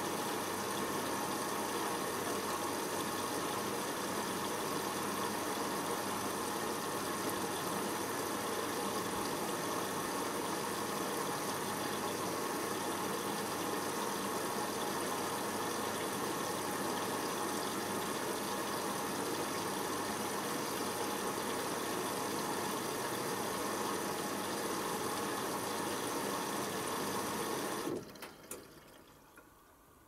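Hoover Optima OPH714D washing machine filling with water through its inlet valve: a steady rush of water that cuts off suddenly near the end, followed by a few faint clicks.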